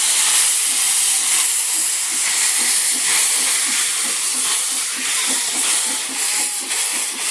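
Narrow-gauge steam locomotive Las49 pulling out, with loud steam hissing out around its cylinders and an even beat of exhaust chuffs beneath the hiss.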